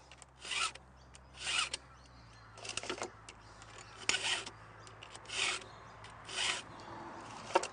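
A Stihl chain-sharpening guide is pushed across chainsaw chain cutters, its round file in the tooth and its flat file over the depth gauge. The file strokes rasp about once a second, three to each tooth.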